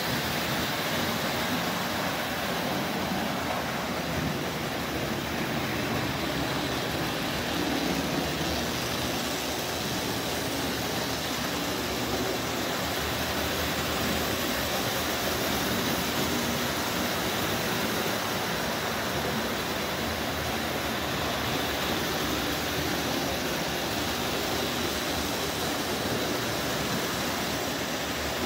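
Marx O27 electric toy train running on tubular three-rail track: a steady, even noise of its motor and wheels rolling on the rails.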